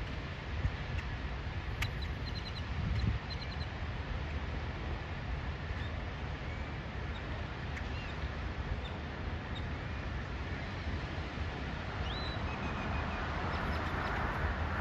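Outdoor dawn ambience: a steady low rumble with scattered short bird chirps and calls, including a few quick runs of ticking notes about two to three seconds in and a rising call near the end.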